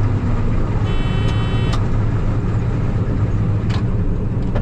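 Case IH combine harvester running steadily under power with its header and threshing works engaged, a strong low hum underneath. A brief high tone sounds about a second in, and there are a few sharp clicks.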